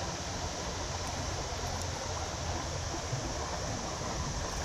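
A small rocky creek running, a steady rush of shallow water over stones.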